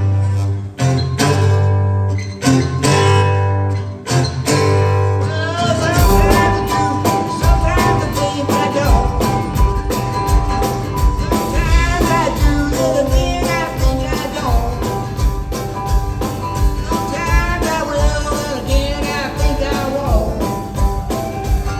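Rock and roll band playing: guitar chords alone at first, then drums and bass kick in about six seconds in and the full band plays on, with a lead guitar bending notes over it.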